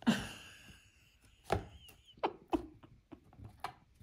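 A domestic cat calls once, a long meow at the start, followed by several sharp knocks and taps.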